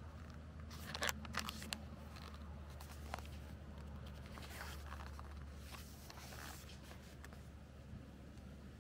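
Packaging being handled and torn open: scattered rustling and crinkling, with sharper crackles about a second in and again around three seconds, over a steady low hum.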